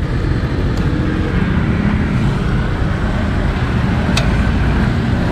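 Steady low rumble of vehicle engines, with two sharp clicks, about a second in and about four seconds in.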